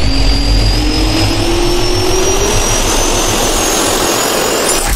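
Jet turbine spool-up sound effect: a whine that climbs steadily in pitch over a low rumble and rushing noise, ending in a sharp hit right at the end.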